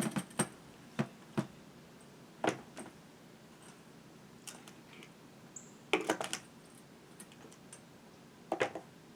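Chainsaws being handled and set about: scattered light clicks and knocks, several of them in short clusters.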